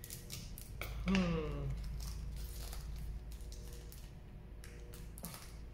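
Foil wrapper of a Magic: The Gathering booster pack crinkling and crackling as it is cut open with scissors and handled. A short wordless vocal sound, falling in pitch, about a second in.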